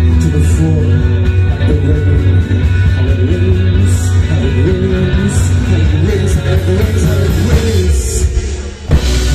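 Live rock band playing: a male voice sings over electric guitars, bass and drums. Near the end the music drops away for a moment, then the full band comes back in together.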